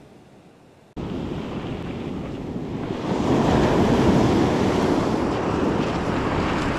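Surf washing onto a beach, with wind buffeting the microphone. The rush of noise starts abruptly about a second in and swells louder a couple of seconds later.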